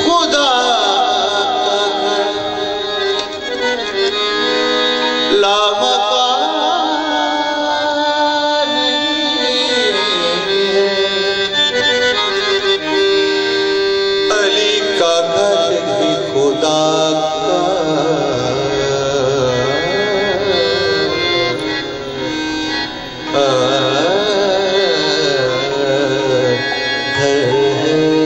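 Devotional manqabat sung live by a male lead vocalist in wavering, ornamented melodic lines, over held harmonium tones and tabla.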